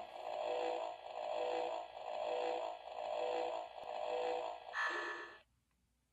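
Toy lie-detector game playing its electronic analysing tune while a hand rests on its sensor: warbling beeping tones that swell about once a second, five times, then a different, higher tone about five seconds in before it cuts off.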